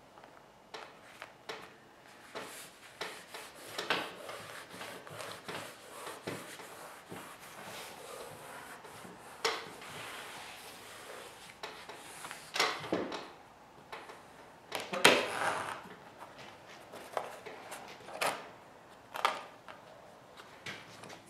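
Sheet of vinyl wrap film being handled, laid over a panel and smoothed down by hand: irregular rustling, crinkling and rubbing, loudest about fifteen seconds in.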